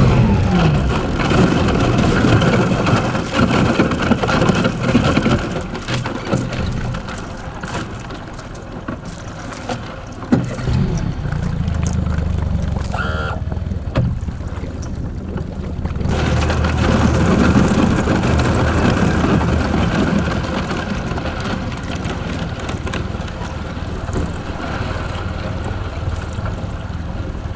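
A boat's motor running steadily while the hull crashes through about a quarter inch of ice, with a dense crunching and cracking of ice that is heaviest in the first third.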